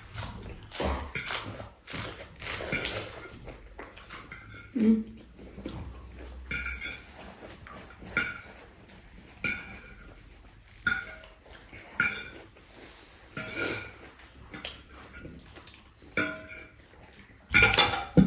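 Cutlery clinking and scraping against plates while eating, in short sharp strikes about once a second, each with a brief metallic ring; the loudest come near the end.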